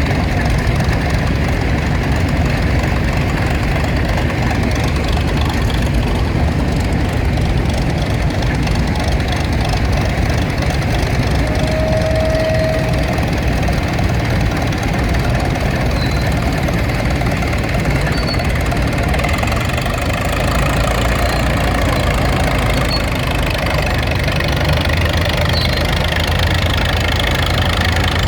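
Farm tractor engines running steadily at low speed, a continuous low rumble. A short steady tone sounds once near the middle.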